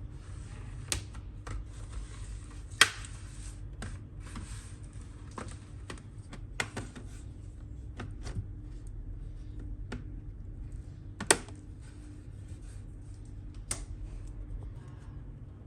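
Hands handling a laptop: scattered sharp clicks and taps, two of them much louder than the rest, with rustling during the first few seconds.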